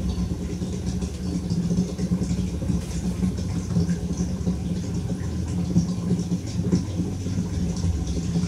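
A motor running with a steady low hum and a faint rattle.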